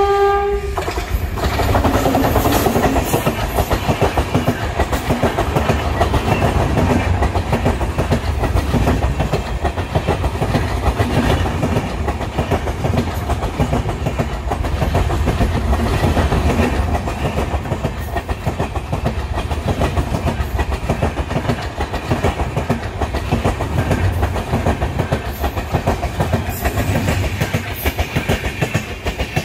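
An electric locomotive's horn sounds a steady chord that stops about a second in. Then the passenger train's coaches run past close by with a loud, continuous clatter of wheels on the rails.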